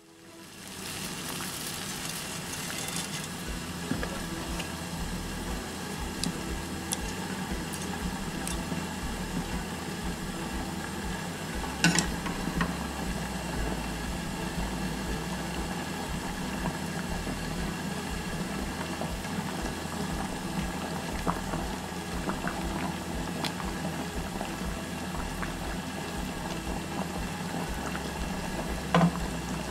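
Pan of water at a rolling boil on a gas burner, with glass noodles boiling in it: a steady bubbling. Two brief sharp knocks, one about halfway through and one near the end.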